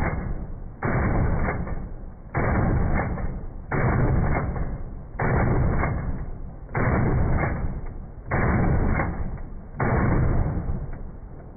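Dissident Arms KL-12, a Molot Vepr-based semi-automatic 12-gauge shotgun, firing seven shots evenly spaced about a second and a half apart. Each shot is followed by a decaying echo.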